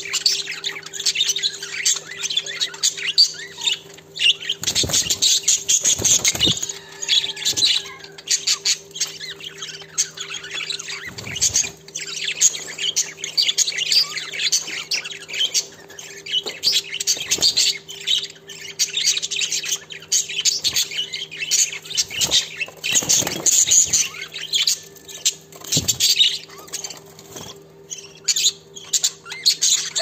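A flock of budgerigars chattering: many rapid high chirps and warbles, with a steady low hum underneath.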